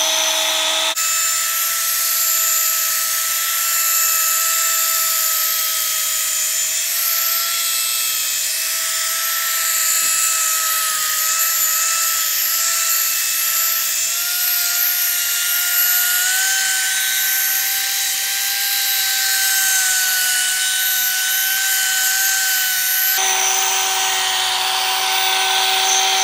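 Corded electric drill spinning a sanding disc against a plastic headlight lens, a steady motor whine with the hiss of abrasive on plastic: the 800-grit sanding stage of a headlight restoration. The whine rises slightly in pitch about two thirds of the way through.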